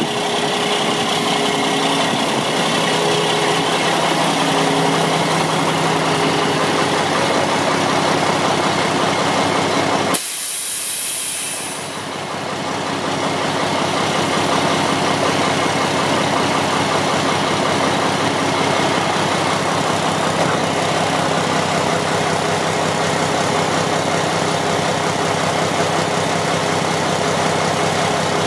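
Diesel engine of a 2007 Mack CV713 winch truck idling steadily, with a steady hiss over it. The sound drops away suddenly about ten seconds in and builds back over the next couple of seconds.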